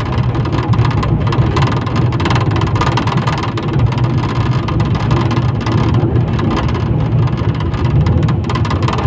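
Inside a 71-911EM "Lvyonok" low-floor tram under way: the steady rumble of the wheels on the rails and the running gear, with a deep hum from the drive.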